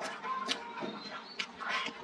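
Close-up eating sounds: a person chewing and slurping mouthfuls of rice with stir-fried pork liver and sour chili peppers, with a few sharp clicks and smacks as chopsticks scrape the food from the bowl.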